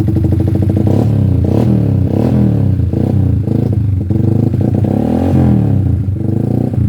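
Yamaha MX King 180 cc single-cylinder four-stroke engine running on a new exhaust, its throttle blipped several times so the note rises and falls over the idle. Its fuel mixture (CO) is being reset after the exhaust change so it stops coughing.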